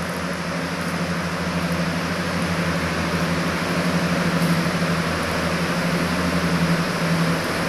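Walk-in cold room's refrigeration plant running: compressors and evaporator fans give a steady electrical hum over an even rush of fan air.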